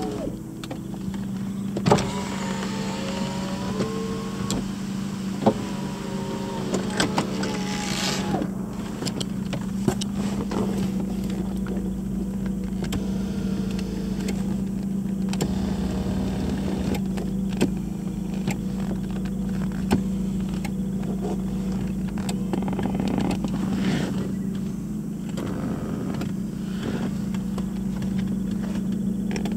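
Power windows and convertible-top mechanism of a 1999 Jaguar XK8 running: a motor whine that rises in pitch over the first several seconds, with a steady hum throughout and several sharp clicks.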